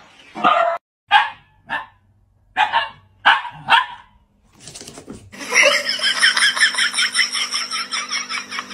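A dog barks six times in the first four seconds: one longer bark, then short sharp ones. After a short gap a steady, fast-pulsing sound with held tones starts and keeps going.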